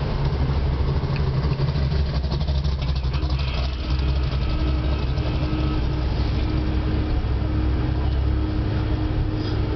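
Steady low engine and road rumble of a car driving slowly, heard from inside its cabin.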